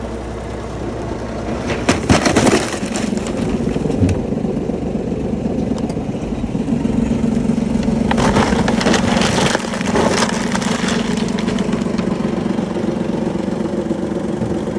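A small car's engine running at low speed as its tyres roll over a cardboard carton of copy-paper reams. The box and paper packs crush with crunches and cracks about two seconds in and again from about eight to ten seconds in.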